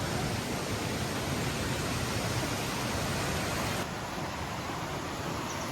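Steady rush of a river and its small waterfalls, an even noise without pitch, dropping slightly in level about four seconds in.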